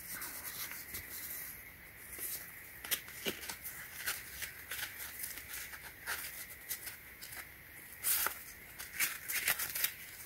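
Sheets of waterproof silicon-carbide sandpaper being leafed through and handled, rustling with scattered short crackles and ticks.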